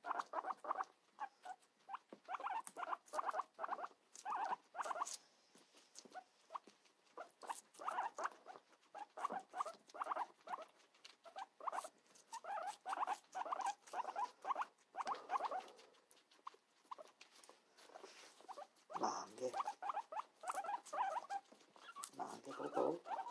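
Two guinea pigs chewing cucumber: rapid crunching and nibbling in quick runs, with short pauses between them.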